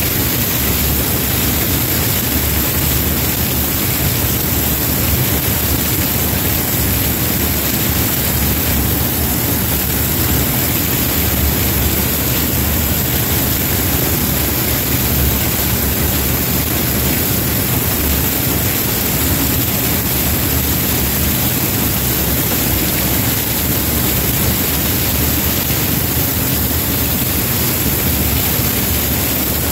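Combine harvester running steadily while harvesting corn: a constant, unchanging machine noise with a low engine hum underneath.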